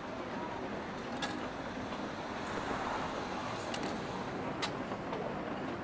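Steady wash of rain and traffic passing on a wet street, with a few short sharp clicks spread through it.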